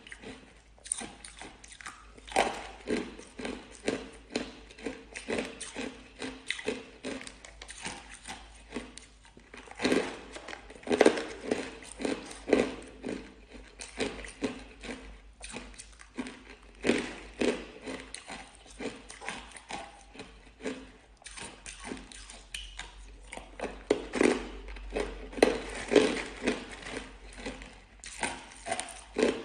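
Hard, crunchy frozen coloured ice being bitten and chewed: irregular clusters of sharp crunches and crackles, loudest about a third of the way in and again near the end.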